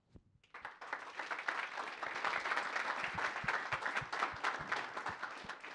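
Audience applauding, building up about half a second in and dying away near the end.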